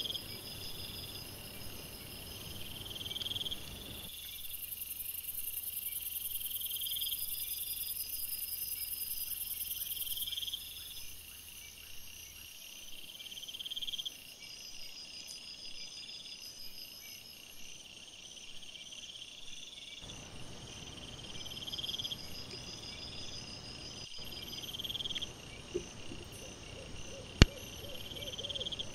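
Night insects chirping, a short high chirp repeating about every two seconds over a steadier, higher trill. One sharp click stands out near the end.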